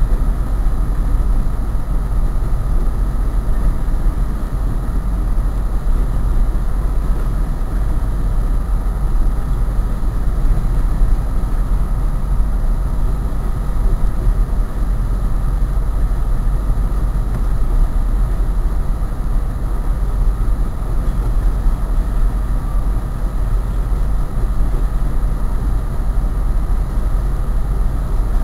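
A train passing close by: a loud, steady rumble of wheels rolling on the rails.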